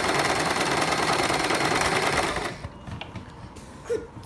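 Usha Janome Prima Stitches electric sewing machine running steadily while stitching a picot edge, stopping abruptly about two and a half seconds in. A few light clicks and taps follow as the fabric is handled.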